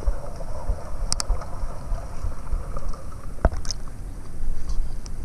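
Low rumble of wind and handling on a microphone held just above river water, with water lapping and a few sharp clicks.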